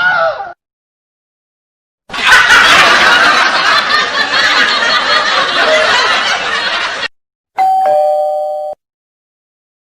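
Two-note 'ding-dong' doorbell chime, a higher note then a lower one, lasting about a second near the end. Before it comes a louder, noisy sound lasting about five seconds.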